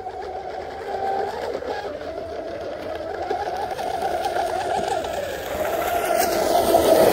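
Electric RC hydroplane with a brushless motor running at speed on the water, a steady whine that grows louder as the boat comes closer and is loudest near the end.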